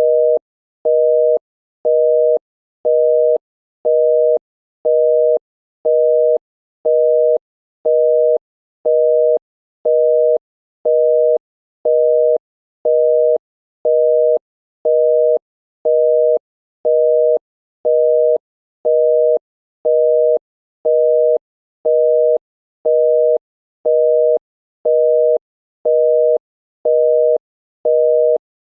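Canadian telephone busy tone: two steady tones at 480 and 620 Hz sounded together, half a second on and half a second off, repeating about once a second. It signals that the called line is busy.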